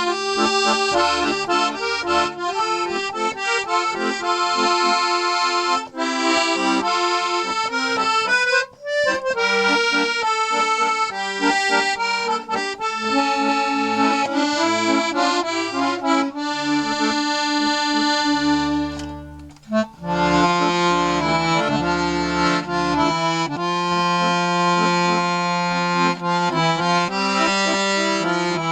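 A 72-bass Stefanelli piano accordion, its reeds freshly cleaned, waxed and tuned, playing a melody over bass accompaniment. The playing breaks briefly about nine and nineteen seconds in.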